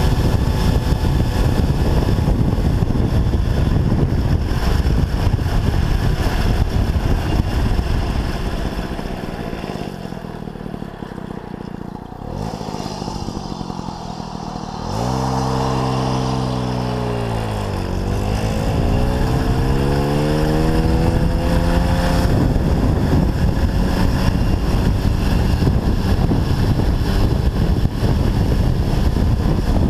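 MBK 51 moped's small two-stroke engine running under way, mixed with wind rush on the microphone. About ten seconds in it eases off and goes quieter. A few seconds later the engine note comes through clearly, its pitch falling and then climbing again as it picks up speed.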